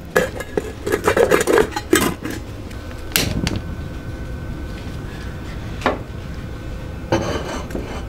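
A metal pot of wild rice and water clattering as it is set on a gas stove, with a sharp click about three seconds in. The pot's lid clatters on near the end.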